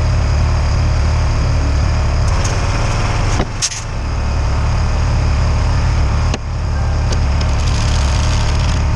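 Forklift engine running steadily, with short sudden breaks about three and a half seconds in and again a little past six seconds.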